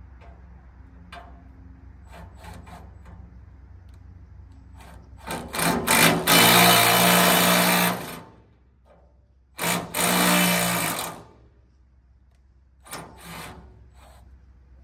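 Power drill running in two bursts of two to three seconds each, about five and ten seconds in, with a short third run near the end.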